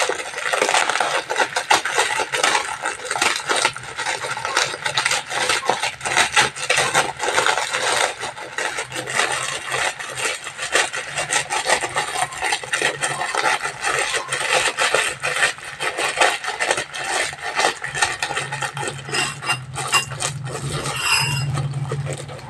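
Plastic food packet crinkling and crackling as it is squeezed, worked and opened by hand, a continuous irregular rustle.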